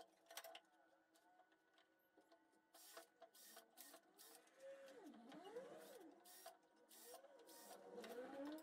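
Faint cordless drill motor whirring, its pitch rising and falling as the trigger is squeezed and eased, mostly in the second half, among light clicks and knocks of wooden boards being handled.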